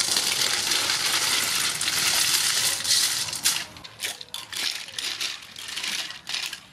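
Small snails in their shells pouring from a metal colander into a pot of hot water, a dense clattering rattle of shells for about three and a half seconds. After that, shorter bursts of shells clicking against each other and the pot as they are stirred.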